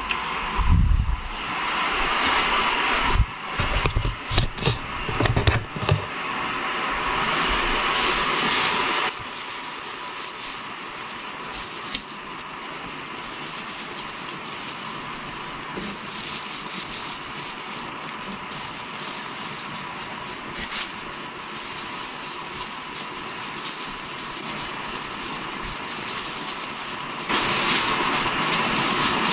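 Rustling and irregular knocks as the branches of an artificial Christmas tree are handled and spread, over a steady background whoosh. The handling stops about nine seconds in, leaving the steady whoosh alone until it swells louder near the end.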